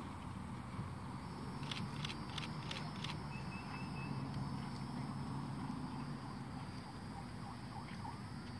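Rural outdoor ambience: a steady high insect drone, a few sharp clicks about two to three seconds in, and a brief bird chirp, over a low rumble.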